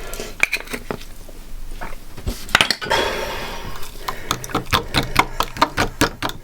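Metal utensil clinking and scraping against a mixing bowl holding a wet egg filling, with a quick run of clicks over the second half.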